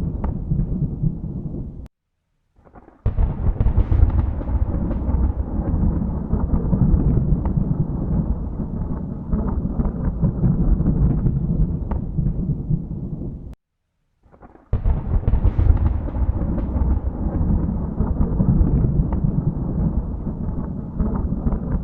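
Rolling thunder rumbling deep and continuously, with crackling peaks. Twice it cuts to dead silence for about a second, about two seconds in and again around fourteen seconds, then starts up again abruptly.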